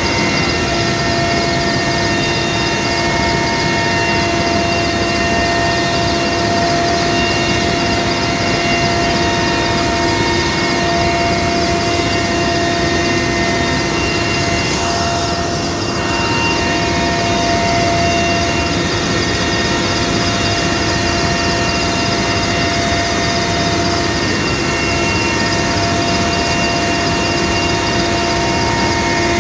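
Helicopter engine and rotor running steadily, heard from inside the cabin with the side door open: a loud, even noise with several steady whining tones.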